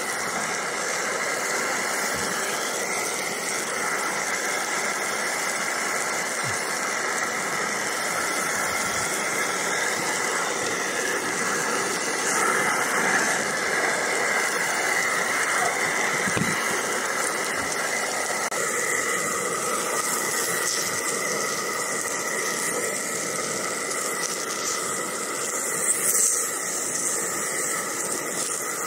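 Rump steak and mushrooms sizzling steadily on a hot Robens Bighorn cast-iron pan, with a brief louder burst near the end.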